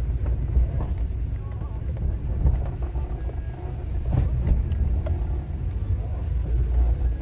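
A car driving along: a steady low rumble of engine and road noise, with a few light knocks.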